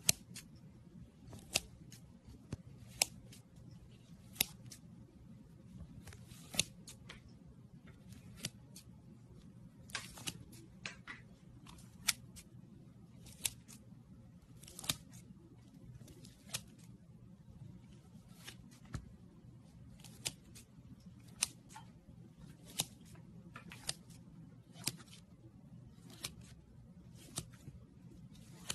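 A knife slicing into a mound of pink kinetic sand, each cut giving a sharp, crisp crunch or click, about one every second or so at an uneven pace, over a faint low hum.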